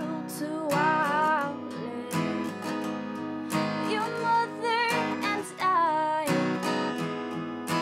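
Background music: a strummed acoustic guitar with a singing voice.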